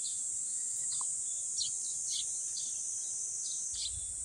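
Outdoor ambience: a steady high insect drone, with small birds giving short, falling chirps over and over. A low rumble comes in near the end.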